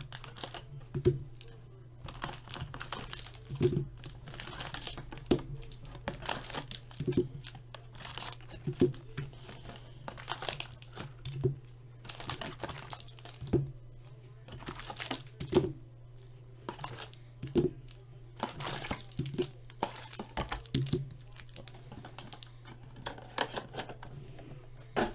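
Foil trading-card packs crinkling as they are pulled from the box and laid down on the table one after another, each landing with a soft tap about every one to two seconds, over a steady low hum.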